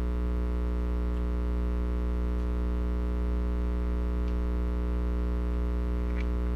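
Steady electrical mains hum with a ladder of overtones, unchanging in level, with a few faint clicks.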